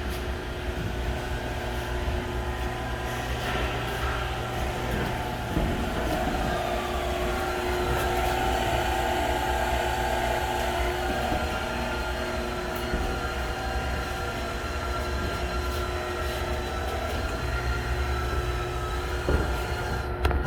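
Steady machine hum with a low drone and a few constant tones, from a motor or engine running without a break.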